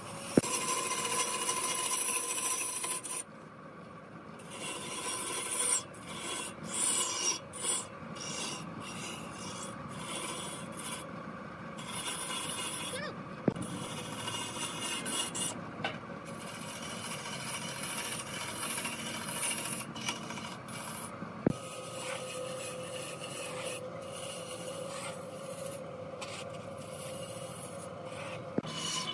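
A hand-held turning tool scraping and cutting into a large timber trunk spinning on a big wood lathe: a rasping scrape that breaks off and resumes many times as the tool is eased off and set back. A steady hum runs underneath.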